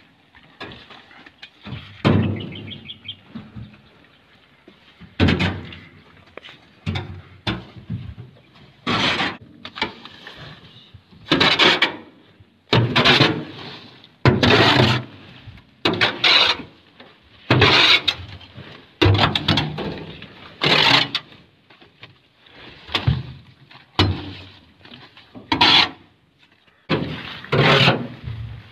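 Cabbage heads being dumped and crushed on the ground: a long run of short crunching, thudding bursts, roughly one every second or so at an uneven pace.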